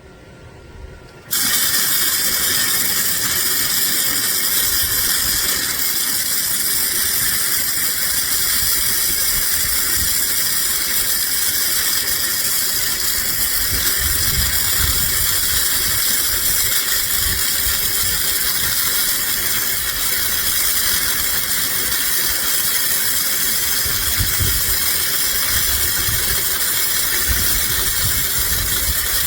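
Gasless flux-core MIG welder (AZZUNO MIG 130F) laying a bead: a steady, loud arc hiss that starts abruptly about a second in and runs on without a break.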